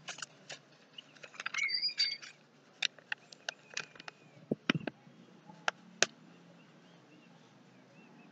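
A sheet of drawing paper is handled and lifted, giving scattered rustles and sharp crackling clicks. A short squeaky chirp comes about a second and a half in.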